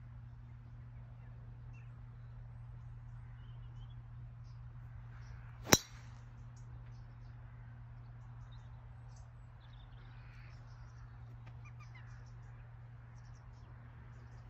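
A golf driver strikes a teed ball: one sharp crack about six seconds in, over a steady low hum.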